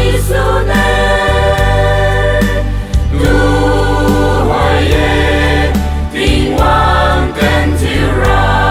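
A women's choir singing a song in Liangmai, in long held notes that change every second or so, over a steady low instrumental backing.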